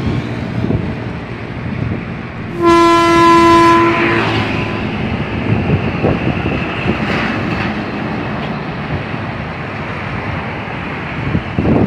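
Heavy tanker truck passing on a road: steady engine and tyre noise, with one air-horn blast of about a second and a half starting about two and a half seconds in.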